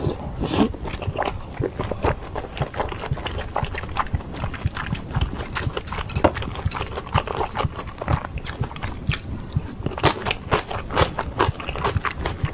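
Close-miked wet chewing of a mouthful of dumpling and ramen noodles: a dense run of irregular wet clicks.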